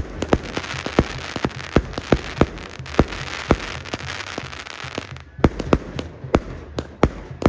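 Aerial fireworks going off: sharp bangs at about three a second over a continuous hiss and crackle, which drops away about five seconds in while the bangs carry on.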